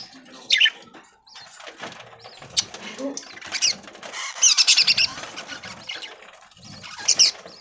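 Budgerigars chirping and chattering in short bursts of quick, high chirps, the busiest burst about halfway through.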